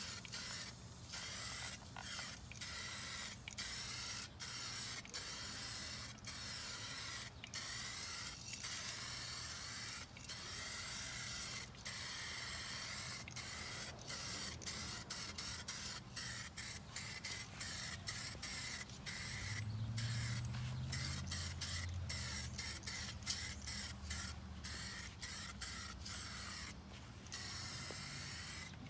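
Aerosol spray paint can hissing as paint is sprayed onto a wheel rim, in hisses broken by many short pauses as the nozzle is let go and pressed again.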